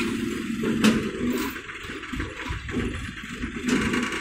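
Heavy engine running with a steady hum and a sharp knock about a second in. It eases off to a rougher, quieter run, then grows louder again near the end.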